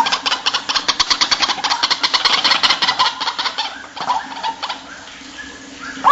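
White-breasted waterhen (ruak-ruak) lure call: a rapid run of pulsed notes, about ten a second, for the first three and a half seconds or so, then a few separate short calls.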